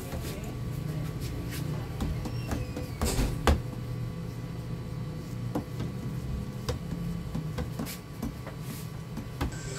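A cloth wiping the bare glass of an LCD panel, clearing off leftover polarizer adhesive with alcohol: scattered light clicks and knocks, with a louder knock about three seconds in, over a steady low hum.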